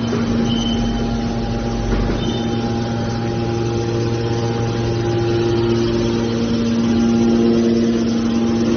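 Hydraulic scrap metal baler running, a steady machine hum with several held tones, one more tone joining about three seconds in.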